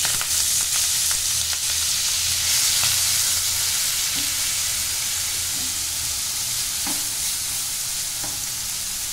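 Chopped onions sizzling as they go into hot mustard oil in a nonstick pan, loudest as they land and easing off gradually, while a silicone spatula stirs them.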